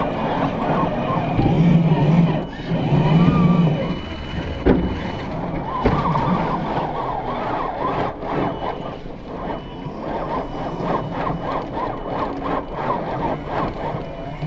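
Electric RC scale crawler's motor and geartrain whining as it climbs a loose sand mound, tyres churning the sand, with scattered clicks.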